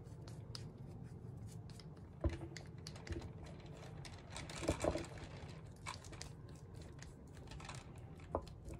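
Flat paintbrush scrubbing antiquing wax onto a resin robin figurine: faint scratchy brush strokes, with a few light knocks.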